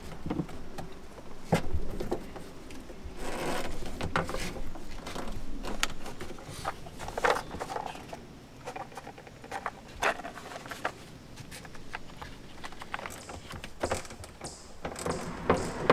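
Hands refitting the fuel-gauge sender and float parts into a jet ski's fuel tank: irregular clicks, light knocks and short scrapes of plastic and metal parts being handled.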